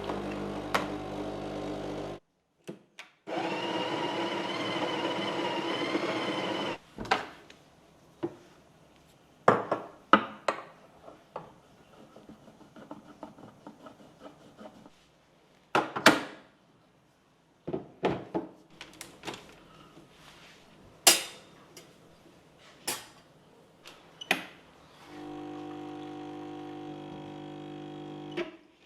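A small electric household appliance motor runs in three short spells, the middle one the loudest, with scattered knocks and clinks in between.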